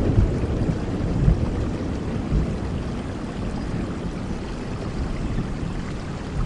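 Steady rain with a low thunder rumble dying away over several seconds.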